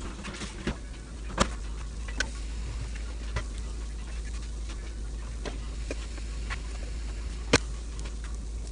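A few sharp clicks and taps from handling an open electric contact grill with a tortilla on it, the loudest about seven and a half seconds in as the lid is brought down, over a steady low hum and faint crackle.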